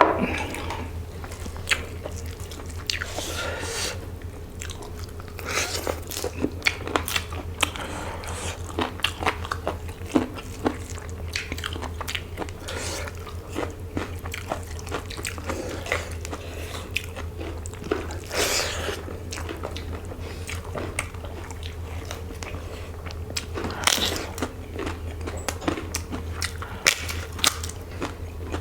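Close-miked eating: chewing and biting with many short, irregular crunches of crisp food, over a low steady hum.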